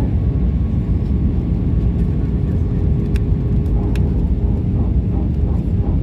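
Steady roar of a jet airliner's cabin on descent: engine and airflow noise heard from a window seat, with a faint steady hum over it.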